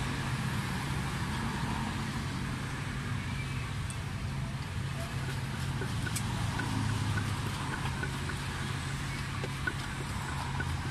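Steady low hum of a running vehicle engine and street traffic, with the dull knocks of a wooden pestle pounding papaya salad in a clay mortar.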